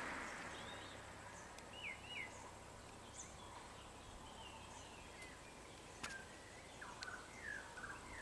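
Quiet roadside ambience with scattered short bird chirps and calls, while the noise of a vehicle fades away in the first second or so.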